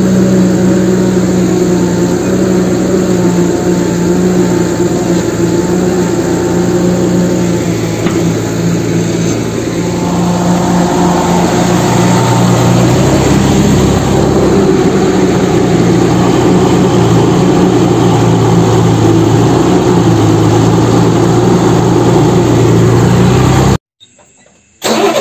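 Loud heavy-machinery engine sound running steadily, its pitch stepping lower and higher a few times around the middle, then cutting out abruptly near the end.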